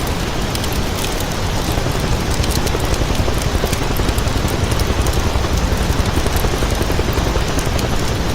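Battery-powered toy vehicle running steadily: a continuous, even noise with a rapid flutter.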